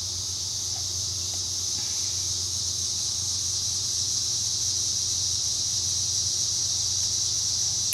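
Steady, high-pitched chorus of insects, a continuous even buzz, over a faint low hum.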